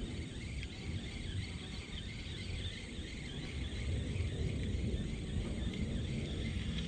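Insects chirring steadily, a high-pitched pulsing trill, over a low rumble.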